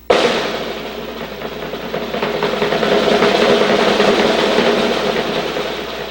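Drum roll that starts suddenly, swells to a peak about two-thirds of the way through, then fades.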